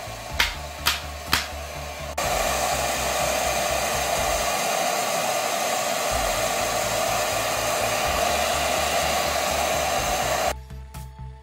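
Torion Pro MD-1900 hand-held hair dryer blowing steadily onto a plastic drill housing. It is quieter for the first two seconds, with three sharp clicks, then abruptly grows louder, and cuts off suddenly near the end.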